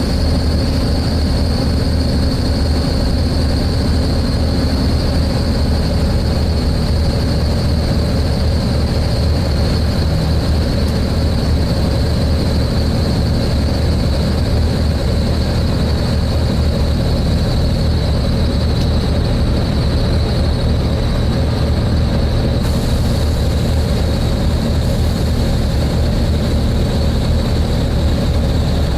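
Volvo B7TL double-decker bus heard from inside while under way: a low engine drone with the radiator cooling fan running and a steady high-pitched screech over it. The screech comes when the cooling fan tries to run at full speed.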